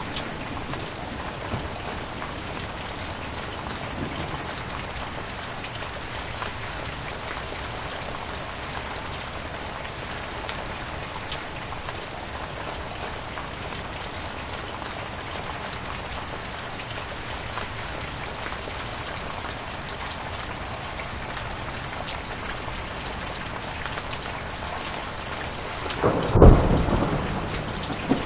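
Steady heavy rain falling, with a single thunderclap near the end that starts suddenly, is the loudest sound, and dies away over about two seconds.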